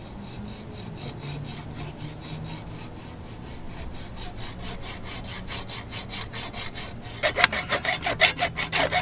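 Hacksaw cutting through a metal bimini-top frame tube, in rapid, steady back-and-forth strokes. The strokes are faint at first and grow much louder about seven seconds in.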